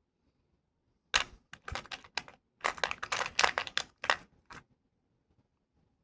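Small hard plastic parts being handled: a quick run of sharp clicks and rattles, starting about a second in and stopping about four and a half seconds in.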